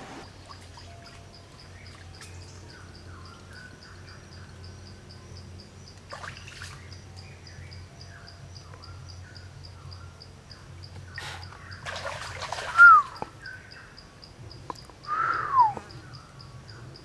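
Rural outdoor ambience: birds chirping on and off over a steady, evenly pulsing high insect trill. Two louder bird calls fall in pitch about 13 and 15 seconds in.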